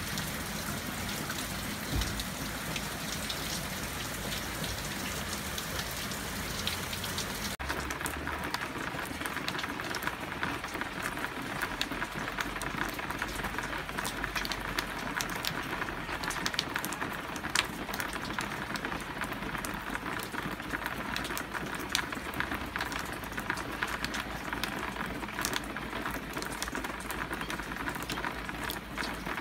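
Hard rain falling steadily. About seven and a half seconds in it changes abruptly to rain striking a wet flat surface right by the microphone, with many sharp individual drop splats over the steady hiss.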